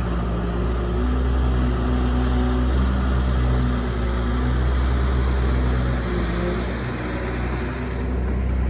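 Heavy diesel engine of construction machinery running steadily, its note holding level with only small rises and dips.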